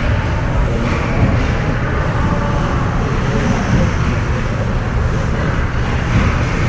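Ice hockey rink ambience during play: a steady rumbling noise with no single event standing out.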